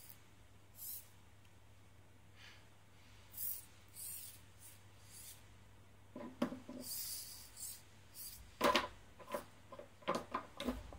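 Robot parts being handled and fitted together on a wooden table: light rubbing and scraping in the first half, then a run of sharp clicks and knocks in the second half, the loudest a little under nine seconds in.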